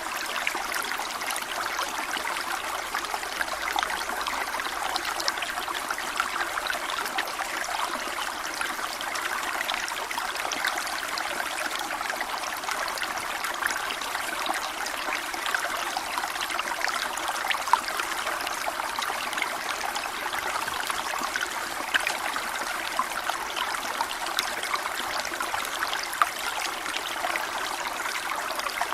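Waterfall: water falling and splashing in a steady, continuous rush with fine splashes throughout.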